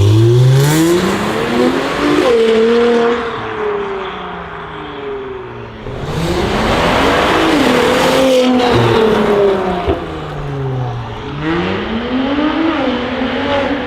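Mercedes-AMG C450 twin-turbo V6 running through an ARMYTRIX cat-back exhaust, accelerating hard: the engine note climbs and falls away three times, with a loud surge of exhaust noise about six seconds in.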